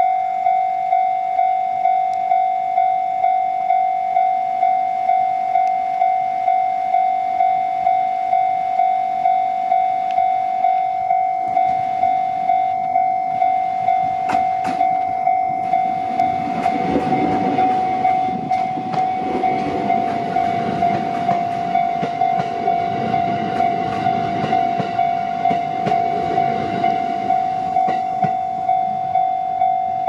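A Japanese level-crossing alarm rings steadily with a repeating electronic bell tone, about three strokes every two seconds. From about halfway, a JR East 701 series electric train rolls over the crossing, its wheels clacking over the rail joints beneath the alarm.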